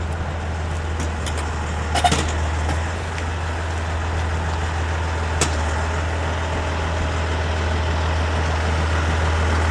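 Steady low engine-like rumble of vehicles and machinery under general outdoor noise. A sharp knock comes about two seconds in and a click around five and a half seconds, and the noise slowly grows toward the end.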